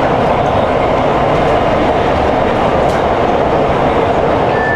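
Metro train running at speed, heard from inside the passenger car: a steady rumble and rush of wheels on track. A thin high tone sets in near the end.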